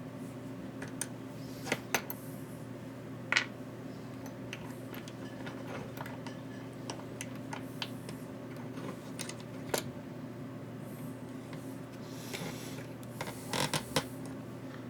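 Scattered small clicks and taps from handling battery connectors, wires and tools during bench soldering work, over a steady low hum. The sharpest clicks come about two and three seconds in, with a cluster near the end.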